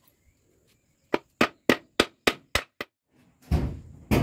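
A hammer striking the metal of a truck brake shoe seven times in quick succession, about four blows a second, then two heavier, dull thuds near the end.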